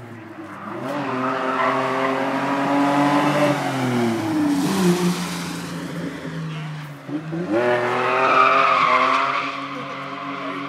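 Small pickup truck's engine revving hard through a drift slide on the wet track. The revs drop off about four seconds in, then climb sharply again about halfway through, with the tires skidding.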